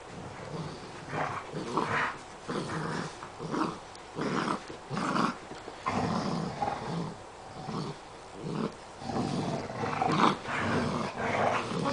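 Seven-week-old golden retriever puppy growling in play while tugging on a rope toy, a string of short growls one after another.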